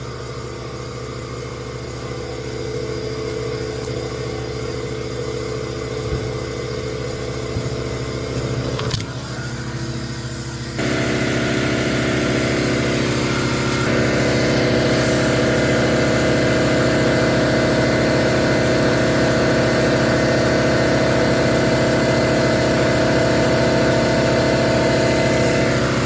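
Steady machine hum with several held engine-like tones, stepping louder about eleven seconds in and again around fourteen seconds.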